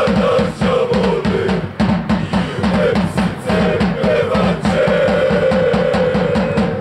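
Football supporters' drums beating a fast steady rhythm, about four beats a second, under the massed chanting of the crowd in the stand, which holds one long note over the last two seconds.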